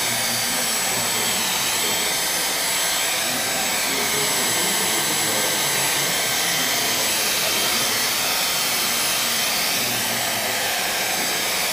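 Handheld hair dryer blowing steadily over a watercolour painting to dry the wet paint: an even rushing of air with a thin high whine over it.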